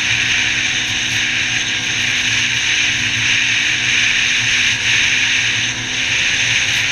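Yamaha Viper XTX snowmobile's three-cylinder four-stroke engine running at a steady cruising speed, under a steady rush of wind and track noise.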